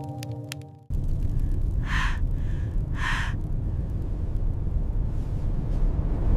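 Strong blizzard wind blowing, a steady low rush that cuts in suddenly about a second in as a held musical drone stops. Two short high-pitched calls sound about a second apart near the middle.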